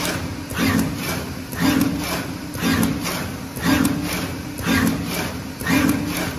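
Automatic tin tie bag pasting machine running, its rotary drum placing tin tie strips onto bags. A mechanical cycle repeats about once a second, each time a low hum with a short noisy swish over it.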